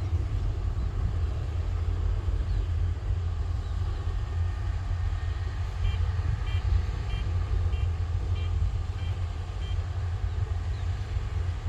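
Kubota rice combine harvester running with a steady low engine rumble. Partway through, a reversing alarm gives about seven short beeps, roughly 0.6 s apart.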